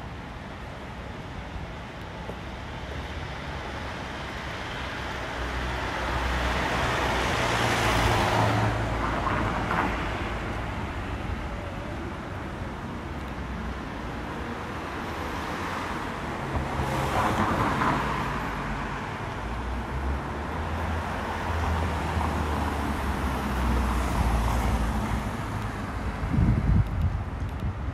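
Road traffic going by: cars passing one after another over a steady street background, each swelling and fading, the loudest about eight and seventeen seconds in. Near the end, gusts of wind buffet the microphone.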